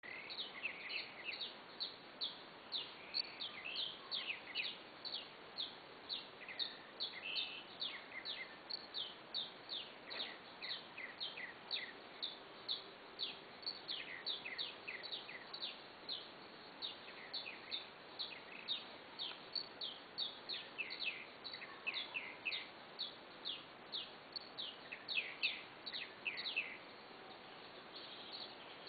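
Nightfall animal chorus: many short, high chirps, each sweeping downward in pitch, overlapping and repeating several times a second, over a faint steady background hiss.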